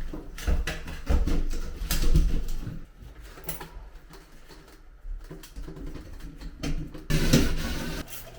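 Handling noise: irregular clicks, knocks and rustling, with bursts of low rumble about a second in and again near the end.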